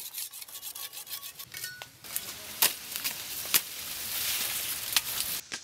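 Steel machete blade being sharpened with a hand-held whetstone: scraping strokes with a faint metallic ring, followed by a few sharp clicks over a rising hiss.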